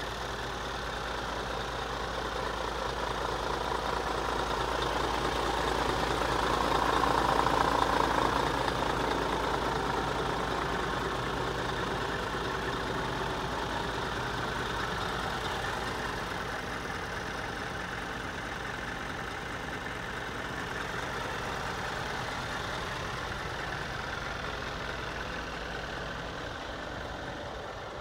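Scania R490 truck's diesel engine idling steadily. It grows louder and then eases off again about a quarter of the way in.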